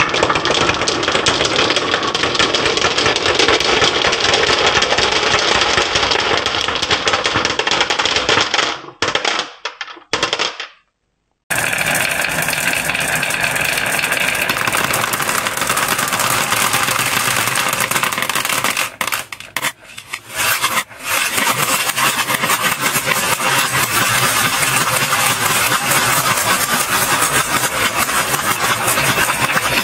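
Many glass marbles rolling and clattering down a sloped wooden marble-run board with carved hollows, a dense continuous rattle. It cuts off abruptly about nine seconds in, is silent for a second or so, then resumes, with a brief drop around twenty seconds.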